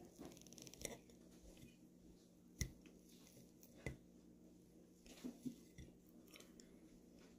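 A metal fork cutting into a slice of cake and knocking against a ceramic plate: a few faint, sharp clinks, the loudest about two and a half seconds in.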